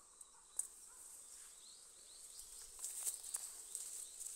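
Faint, steady, high-pitched insect chirring. There is a single click about half a second in, and scattered footstep rustles build up in the second half.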